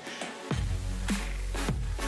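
Background electronic music. A deep bass and a steady kick-drum beat, about two hits a second, come in about half a second in.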